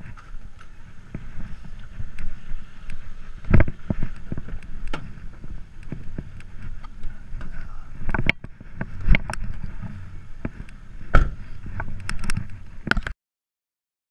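Knocks and clunks of a house door latch and a car door being handled, over a steady low rumble of movement on a body-worn camera's microphone. The sound cuts off suddenly near the end.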